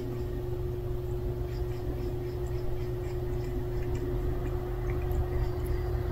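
A steady low mechanical hum with a constant mid-pitched tone, and over it faint scattered ticks of a tortoiseshell-tabby cat licking its paw while grooming.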